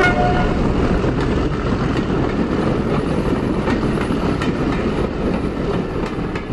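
A railway train running, heard as a steady rumble with occasional clicks of wheels over the rails, with a short chime at the very start.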